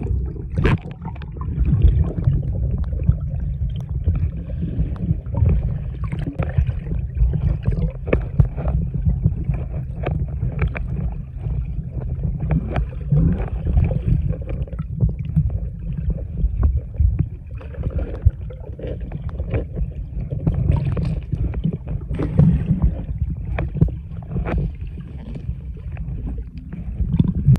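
Underwater audio from a snorkeler's camera: a continuous muffled rumble of water moving around the camera, with frequent small crackles and pops and a faint steady high whine.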